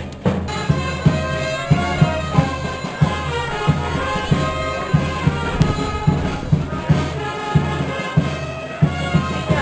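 Andean festival band music: a melody line played over a steady beat of large bass drums.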